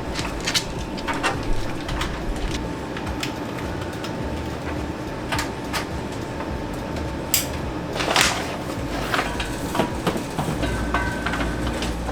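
Cables being handled and pushed into plastic under-desk cable management channels: irregular sharp clicks and rustles over a steady low rumble.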